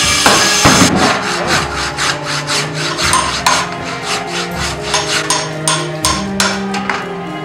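Hand saw cutting through timber in quick, even back-and-forth strokes, about three a second.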